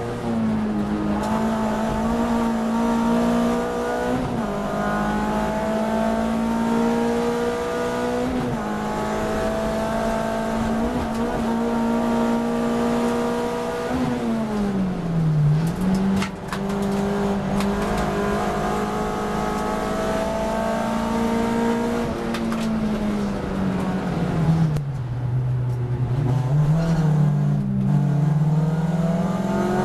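A racing car's engine heard from inside the cockpit, held at high revs for long stretches, with short dips in pitch about four and eight seconds in, a deeper drop and recovery around fifteen seconds, and a long fall to low revs around twenty-five seconds before it climbs again.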